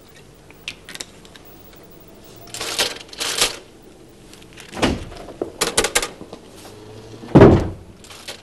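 Office handling noises: a few light clicks, short rustling bursts and a quick cluster of sharp taps, then a loud thump near the end.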